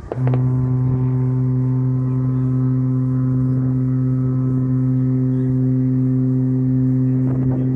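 Ship's horn sounding one long, deep, steady blast that starts just after the beginning and holds unbroken throughout.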